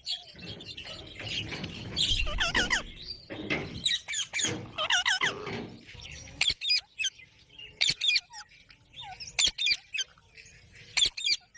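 Ringneck parakeet calling: warbling, chattering calls in the first half, then a run of short, sharp squawks.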